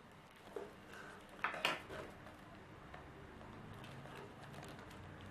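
Hard plastic toy pieces being handled, with a few sharp clicks and clacks, the loudest two coming close together about a second and a half in.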